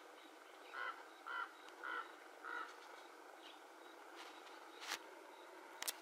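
Acorn woodpecker giving four harsh calls in quick succession, about one every half second. A sharp click follows near the end.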